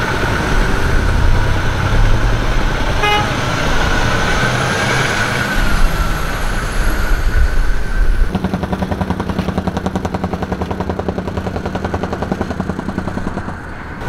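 Road traffic rumbling past, heavy trucks among it. About eight seconds in this gives way to an engine idling steadily with a fast even pulse.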